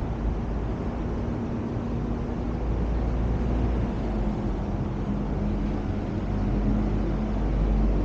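City road traffic: a steady low rumble of passing and idling vehicles, with a faint engine hum that grows stronger in the second half.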